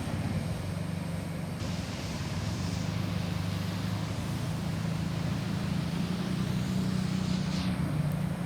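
Vehicle engine running steadily, a low even hum with outdoor street noise. No siren is sounding.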